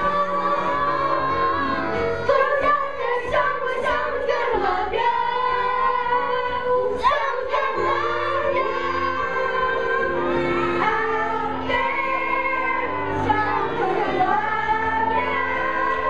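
A chorus of children singing a musical-theatre number together over instrumental accompaniment with a steady bass line.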